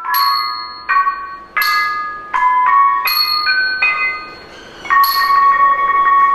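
Thai khong wong, a circle of tuned bossed gongs, played with padded mallets. It sounds a slow line of single ringing notes, then from about five seconds in a fast roll of repeated strokes on one pair of notes. Small hand cymbals (ching) chime about every second and a half, marking the beat.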